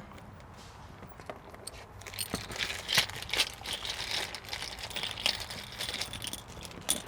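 Packaging crinkling as the kit's parts are handled: quiet at first, then an irregular run of crackles from about two seconds in.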